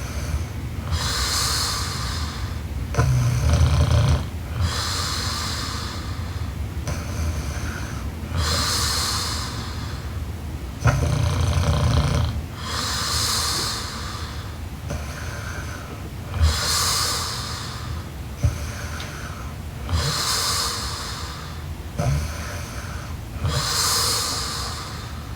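A woman snoring in her sleep, about one breath every four seconds. Each breath pairs a low rumbling snore with a hissing rush of air, and a few of the snores are louder than the rest.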